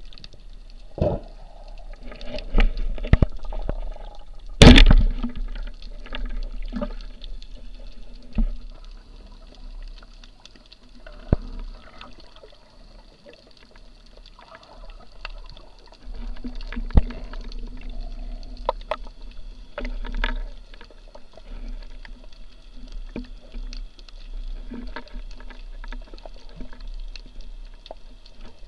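Underwater sound picked up by a camera mounted on a speargun: water washing and sloshing around the housing, with scattered knocks and clicks, the loudest a sharp knock about five seconds in.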